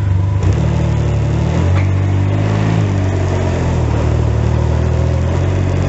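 Can-Am Ryker Rally three-wheeler's engine running as it pulls away at low speed. The engine note shifts in pitch about half a second in and again near two seconds, then runs steadily.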